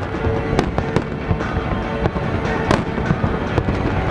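Aerial firework shells bursting: many sharp bangs over a continuous low rumble, with two louder reports, about half a second in and near three seconds in. Music plays underneath.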